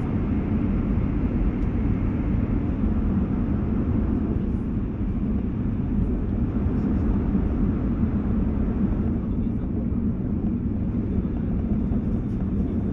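E2-series Shinkansen motor car (E225) running on the line, heard from inside the car: a steady low rumble of wheels, bogies and air with a faint whine above it. Its traction gear is a Siemens/Toshiba GTO-VVVF inverter drive.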